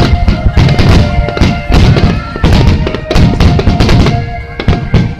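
Star mine fireworks barrage: aerial shells bursting in rapid succession, several bangs a second, thinning out near the end. Music with sustained notes plays under the bangs.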